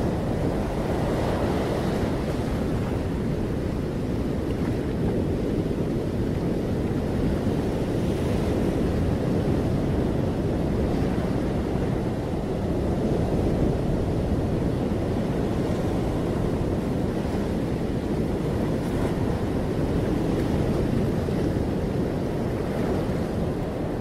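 Steady rushing of ocean surf and wind, rising and easing a little in slow swells.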